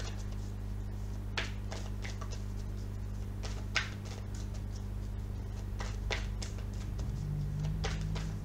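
A deck of oracle cards being shuffled by hand: short, soft swishes of cards sliding against each other, coming irregularly every second or two, over a steady low hum.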